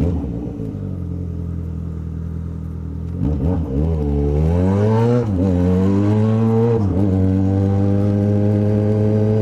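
Yamaha XJ6 inline-four motorcycle engine running at low, steady revs, then about three seconds in accelerating: the revs climb, drop back twice as it shifts up, and settle into a steady cruise.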